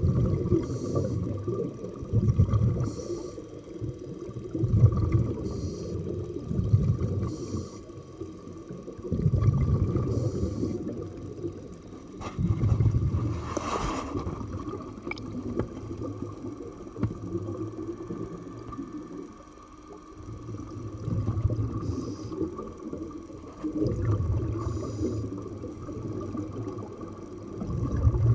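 Scuba divers breathing underwater: low bubbling surges of exhaled bubbles from the regulator every two to four seconds, with short hisses between some of them.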